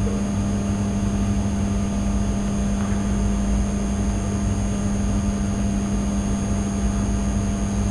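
Steady background hum and hiss of the recording setup, with a constant low tone and a low rumble underneath, unchanging throughout.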